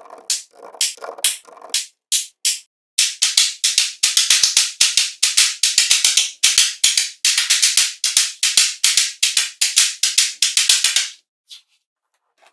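A quick run of sharp percussive clicks, about four a second, sparser and softer in the first two seconds, stopping about a second before the end.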